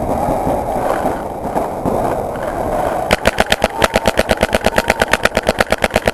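Paintball marker firing a rapid, even string of shots, about eleven a second, starting about three seconds in. Before that, a steady din of background noise.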